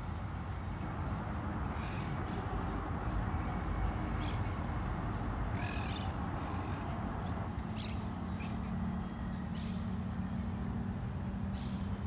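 Birds giving about ten brief, separate calls, scattered irregularly, over a steady low rumble of city traffic.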